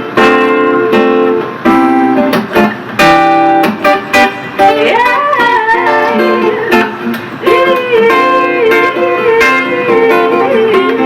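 Live band music in a guitar-led passage without lyrics: rhythmic strummed chords, with a wavering, bending lead line over them from about four seconds in.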